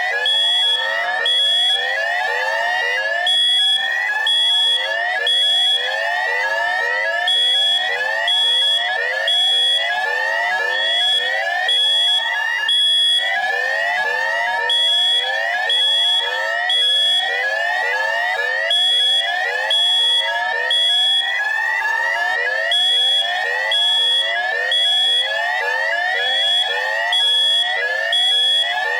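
Harsh electronic alarm sound: rapid, repeating rising sweeps, several a second, layered with short high-pitched beeps that come in runs with brief pauses between them. It is loud and deliberately jarring, and it cycles without a break.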